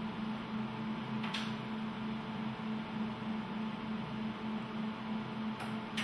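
Steady low electrical hum of an echocardiography machine, with two faint clicks of its console buttons being pressed, about a second and a half in and again near the end, as the scan mode is switched to colour M-mode.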